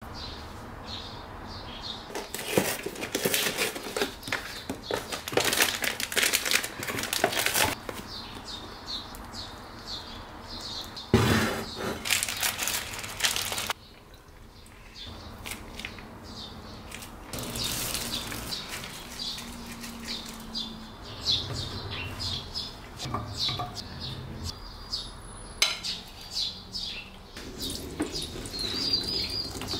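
Plastic meal-kit packets crinkling as they are handled, with dishes clinking. Near the end, water pours from a plastic bottle into a metal pot.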